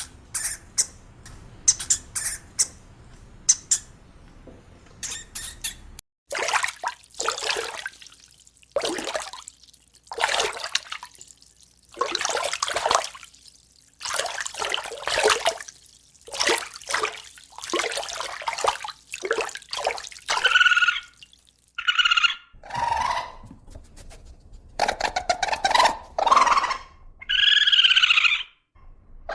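A run of animal calls in about three parts. First come short, high squeaks, then rough, noisy calls from about six seconds in, and from about twenty seconds in, pitched honking calls.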